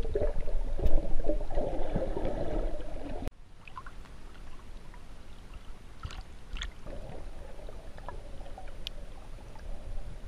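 Muffled underwater rumble and gurgling of water moving against a waterproof camera housing. About three seconds in it cuts off abruptly to a quieter hiss with a few light splashes at the water's surface, and the low muffled underwater sound comes back later on.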